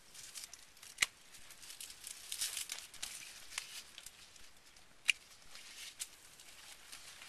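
Hand pruning shears snipping through grape cluster stems as clusters are thinned off the vine: two sharp snips, about a second in and about five seconds in, with a few fainter clicks, amid the rustle of vine leaves and grape bunches being handled.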